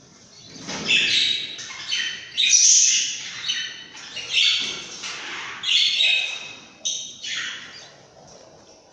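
Lovebird chicks squawking: a run of harsh, raspy calls, one after another, that stops shortly before the end.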